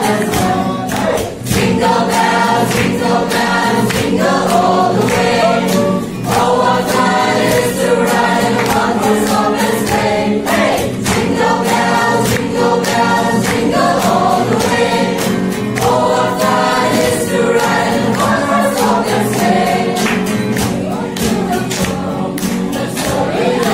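A small group of voices, mostly women, singing a Christmas song together to a strummed acoustic guitar.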